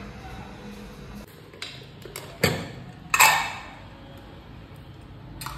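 Kitchen utensils knocking: a few light clicks, then two sharp loud knocks less than a second apart, the second with a short ringing tail.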